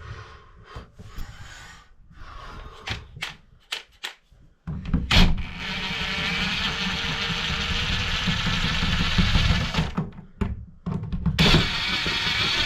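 A few scattered clicks and knocks, then a steady rushing noise that starts about four and a half seconds in, stops briefly about ten seconds in, and starts again.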